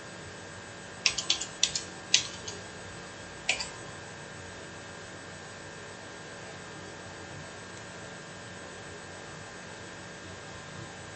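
Keyboard keystrokes: a quick run of about seven clicks between one and two and a half seconds in, and one more click about a second later, as a measured diameter value is typed in. A steady electrical hum runs underneath.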